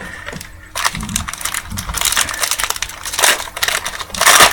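Crinkling and crackling of a trading-card pack wrapper being torn open and handled: a fast run of small crackles that starts about a second in, with a louder burst near the end.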